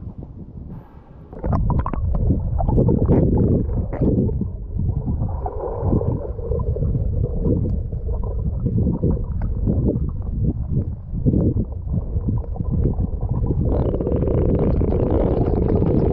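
Water rumbling and gurgling around a camera underwater, with many short knocks and bumps; the sound turns loud about a second and a half in, as the camera goes under. A steadier rushing hiss joins near the end.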